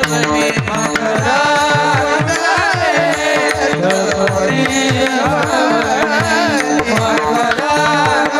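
Devotional kirtan music: a singer's voice over a steady held chord, with a hand drum playing strokes whose deep bass notes slide downward, a few strokes a second.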